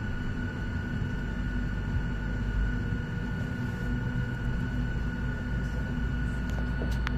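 Steady cabin drone of a jet airliner being pushed back, a low rumble with a thin steady high whine running over it. The rumble grows a little louder toward the end, and a couple of sharp clicks come near the end.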